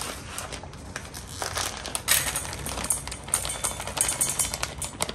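A plastic bag of dry dog kibble crinkles as it is opened, then kibble pours into a stainless steel bowl. From about a second and a half in there is a dense, quick rattle of small clicks as the pieces land.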